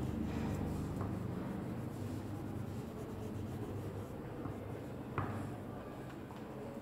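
Brown colour pencil scratching back and forth on paper as a shape is shaded in, over a low steady hum, with one short tap about five seconds in.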